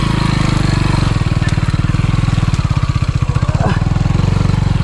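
Motorcycle engine running at low revs with a fast, even putter, on a slippery mud track.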